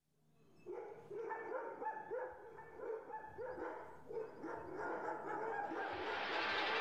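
A dog barking over and over, about two barks a second, over a low steady hum; near the end a rising wash of noise comes in.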